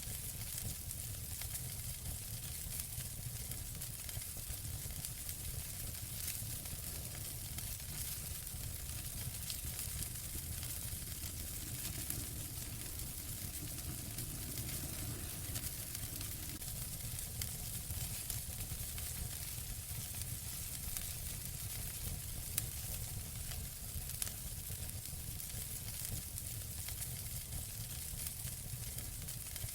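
Wood fire burning in a fireplace: a steady hiss with scattered small crackles and a couple of sharper pops.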